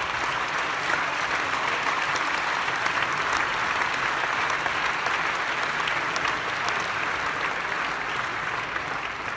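Large audience applauding: dense, steady clapping that begins to die away at the end.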